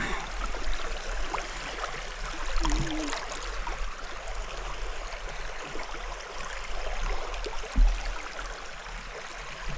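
Steady rush of flowing river water, with light splashing from hands held in the current. A single low thump comes near the end.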